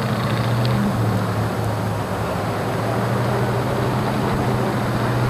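Motorcycle with a sidecar, its engine running steadily as it is ridden along at an even speed.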